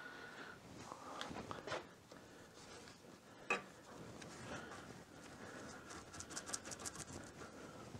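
Faint strokes of a paint brush dabbing and spreading thick Rust Bullet rust-preventive coating over bare sheet metal, with one light tick about three and a half seconds in and a run of quicker strokes near the end.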